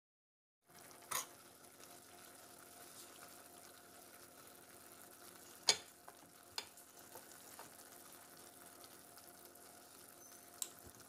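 Food sizzling quietly in a frying pan while a metal spoon stirs it, knocking against the pan a few times, loudest about halfway through.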